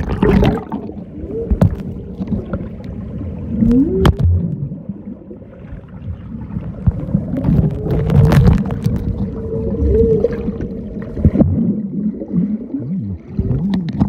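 Muffled underwater water movement heard through a sealed waterproof phone case: low rumbling and gurgling, with short wavering tones that slide up and down and a few sharp knocks against the case.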